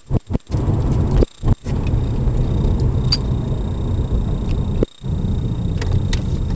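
BMW 323Ci's straight-six engine and road noise heard as a steady low rumble inside the moving car's cabin. The sound cuts out briefly several times in the first couple of seconds and once about five seconds in.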